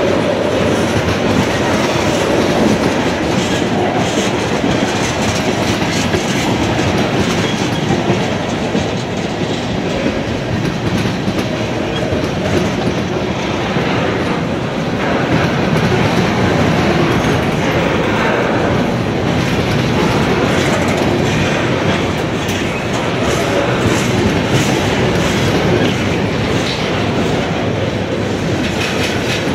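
Freight train cars, mostly tank cars, rolling slowly past a grade crossing: a steady rumble of wheels with clickety-clack over the rail joints.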